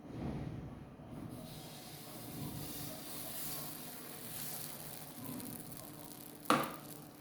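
Pancake batter sizzling in a pan, a steady hiss that builds after the first second, with one sharp knock near the end.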